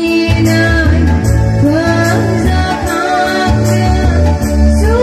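A woman singing a Bodo gospel song into a microphone, over amplified backing music with shifting bass notes and a steady drum beat.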